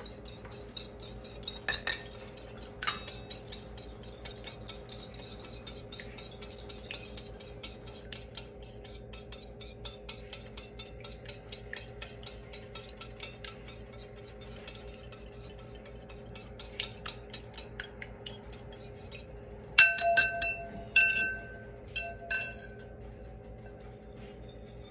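Wire whisk beating egg and milk in a ceramic bowl: a fast, even run of light clicks as the wires hit the bowl. Around twenty seconds in come a few louder, ringing clinks of the whisk knocking against the bowl.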